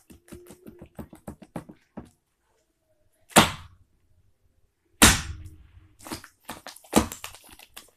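Homemade fluffy slime being squeezed and worked in the hands. Quick small sticky clicks come first, then three loud smacks, about three and a half, five and seven seconds in.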